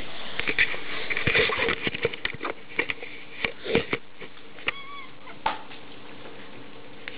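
A cat playing with a small ball on a laminate floor: irregular sharp knocks and taps as the ball bounces and the cat's paws hit the floor, with a brief squeak about two-thirds of the way through. A breathy rustle close to the microphone fills the first couple of seconds.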